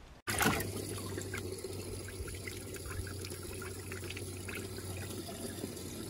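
Water trickling and splashing in a bass boat's livewell, over the steady low hum of the livewell pump.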